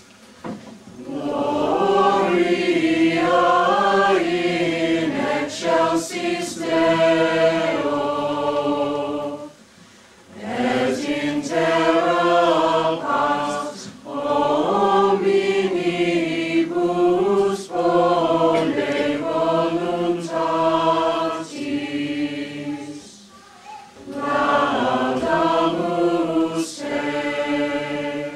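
School choir of teenage voices singing in several parts, in long phrases with short breaths between them.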